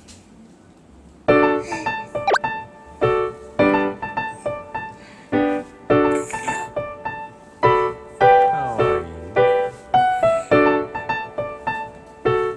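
Background music on piano or keyboard, starting about a second in: a run of short, struck notes.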